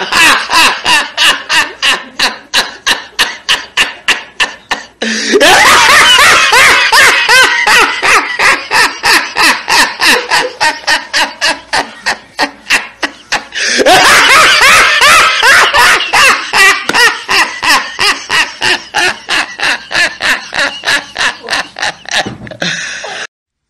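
A man laughing uproariously without pause, in quick pulses of about four a second. Two louder, denser stretches begin about five and fourteen seconds in. The laughter cuts off suddenly near the end.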